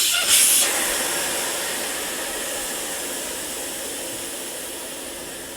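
Air rushing out of a motorcycle tyre through the valve stem with its valve core removed. A loud hiss, strongest in the first second, slowly fades as the tyre deflates.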